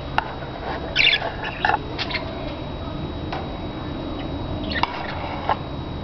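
Budgerigars chirping in short, scattered calls, with a cluster of chirps about a second in and another near the end.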